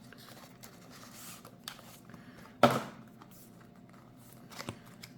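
Small product box being opened and handled: faint scraping and rustling of cardboard packaging, with one sharp knock about two and a half seconds in.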